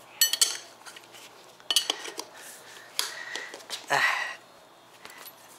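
Metal tire levers clinking against the scooter wheel's rim in short ringing taps, with a louder scrape about four seconds in, as the tire is pried off the hub motor.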